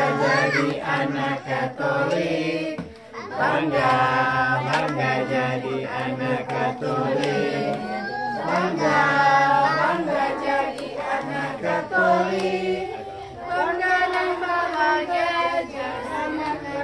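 A group of young children singing a song together, in phrases with short pauses between them.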